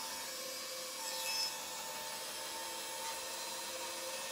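A 14-inch Rikon bandsaw with a 5/8-inch resaw blade cutting lengthwise through a thick wooden beam: the blade's steady cutting noise over the motor's hum, growing louder briefly about a second in.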